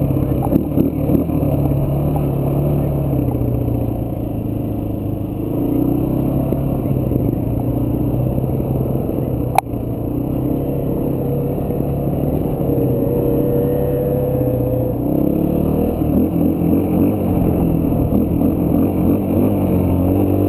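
Dirt bike engine running under way, its pitch rising and falling as the rider speeds up and slows. There is one sharp click about halfway through.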